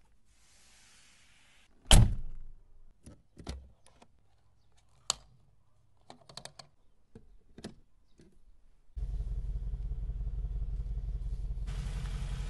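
A car door shuts with a heavy thunk about two seconds in, followed by a few light clicks and taps from handling the fuel filler cap and flap. About nine seconds in, the SUV's engine comes in and runs at a steady idle.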